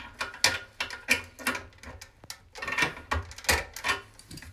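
A new plastic toilet fill valve being twisted and worked by hand inside the tank, giving a run of about ten irregular plastic clicks and knocks.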